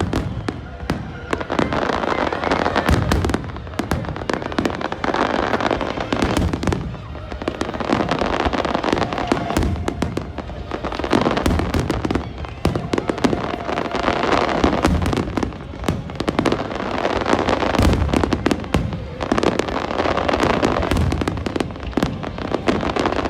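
Large fireworks display: a dense, continuous run of bangs and crackles from bursting shells.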